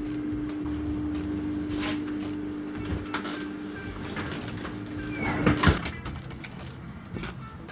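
Steady hum with a few light clicks, then a glass entrance door opening with a loud clack and rattle about five and a half seconds in, where the hum stops.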